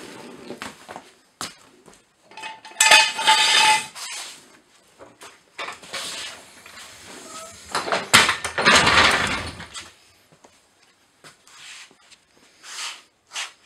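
Steel jack stands clanking and scraping on a concrete floor as they are pulled from under a raised zero-turn mower and the floor jack is let down. The loudest part is a longer rattling, scraping stretch a little past halfway.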